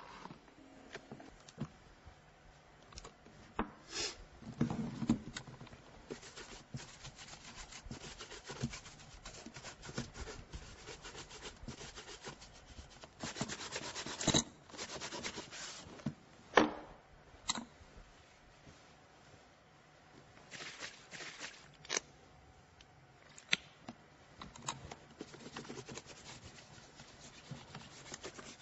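A cloth rubbing over a leather shoe in stretches of brushing strokes, broken by scattered sharp knocks and clicks as the shoe and polishing things are handled on a wooden table. The sharpest knock comes about two-thirds of the way in.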